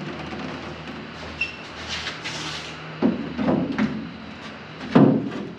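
Steel bonnet of an MG Midget being handled and shifted into place over the front end: light scraping and a few clunks, with the loudest knock about five seconds in.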